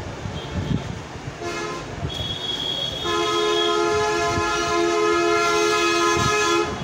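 A horn sounding one long steady blast of several tones held together, about three and a half seconds long, cutting off suddenly near the end; fainter tones come in a second or so before it.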